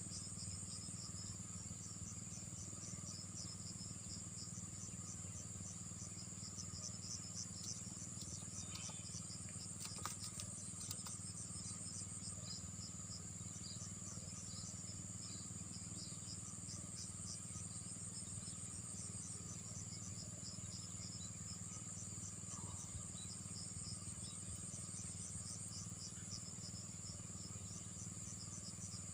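Insects trilling steadily in a high, fast-pulsing drone, with another layer of short chirps repeating several times a second.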